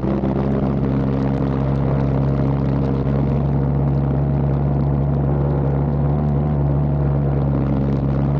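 Pulsejet engine on a homemade snow sled running flat out with a steady, loud, low buzzing drone that holds one pitch, over a hiss of rushing air.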